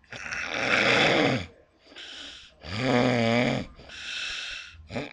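A sleeping woman snoring loudly: two big snores about a second and a half apart, the second with a droning pitch, each followed by a softer breath.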